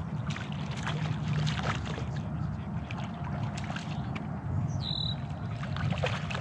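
Steady low rumble of wind on the microphone, with scattered small clicks and rustles from reeling in and handling the rod and landing net, and a brief high squeak about five seconds in.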